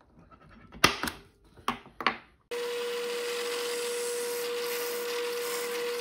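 Pencil scratching across the end of a small hardwood pen blank in four short strokes, marking lines from corner to corner. Then, about halfway through, a drill press runs steadily with one constant tone as its long bit bores into the blank.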